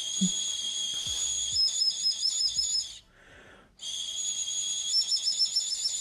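Natufian bone flute (aerophone) blown in two long high whistles with a short pause between. Each holds steady at first, then breaks into a fast warbling trill, a sound likened to the calls of birds of prey.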